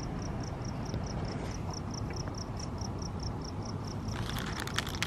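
A cricket chirping in an even, steady rhythm, about four chirps a second. About four seconds in, the crinkling and crackling of a hand grabbing and handling a stiff paper bag.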